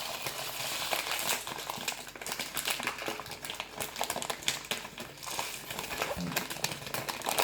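Bird seed poured from a jar into a bowl: a dense, uneven run of tiny clicks as the many small seeds land.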